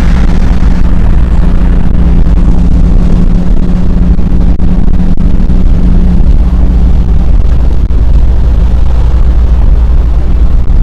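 Loud wind noise and low road rumble from a Z car at speed, with a steady engine drone that fades about six seconds in.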